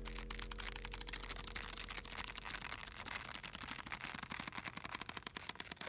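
A fast, even run of mechanical clicks, about fifteen a second, like a machine such as a printer working through its job.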